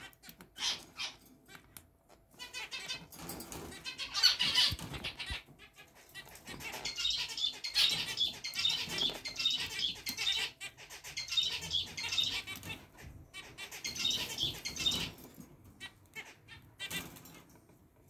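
Zebra finches chirping and singing: quick strings of high, repeated notes, busiest through the middle and thinning out near the end.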